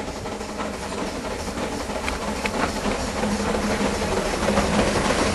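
Narrow-gauge steam locomotive working a train of coaches with steam exhaust, growing steadily louder as it approaches.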